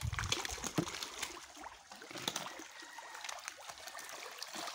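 Catfish splashing and churning the water as they feed at the pond surface, a steady wash broken by many small, irregular splashes.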